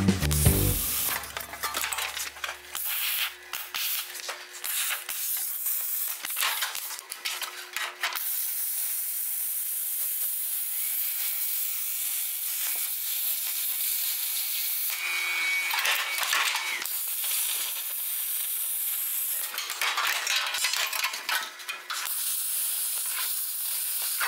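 A power tool cutting through rusted sheet steel in a car body's rocker panel, giving a hiss with a faint steady tone under it. The cutting comes in short stretches at first, runs steadily for several seconds in the middle, then turns stop-start again.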